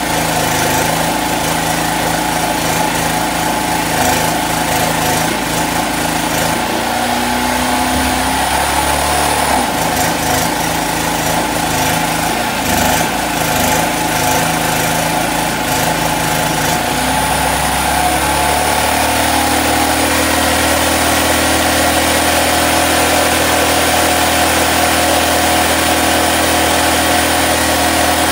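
Small portable generator engine running steadily under the pull of an AC stick welder, its low note shifting as the load changes. Over it, the hiss and crackle of a 7018 electrode arc cutting through the steel drum, which stops about two-thirds of the way through while the engine keeps running.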